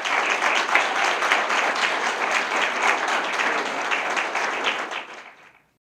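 Audience applauding, dense clapping that fades out about five seconds in and then stops.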